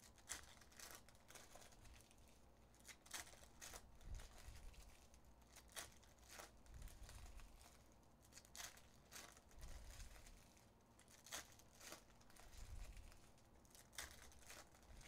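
Foil trading-card packs being torn open and crinkled by hand: faint, irregular crinkles and rips, with a few soft low thumps from handling.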